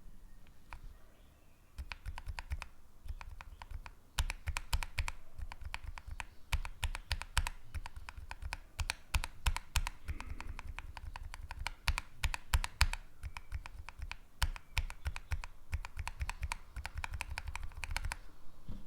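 Typing on a mechanical keyboard fitted with Kailh Box linear switches: a fast, continuous run of keystroke clacks, starting about two seconds in and stopping just before the end.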